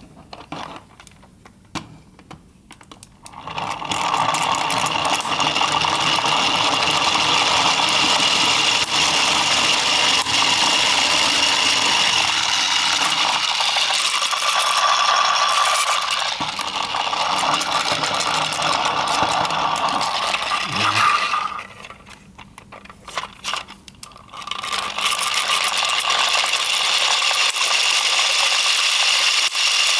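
3D-printed plastic gearboxes of a mechanical fan running, a dense steady rattling whir of meshing gear teeth. It begins after a few scattered clicks, stops for a few seconds just past the middle with more clicks, then starts again.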